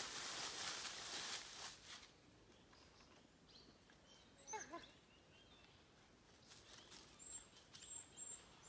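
Dry leaf litter rustling for the first two seconds, then a quiet forest with one short call made of quick rising and falling notes about four and a half seconds in, and a few faint high chirps near the end.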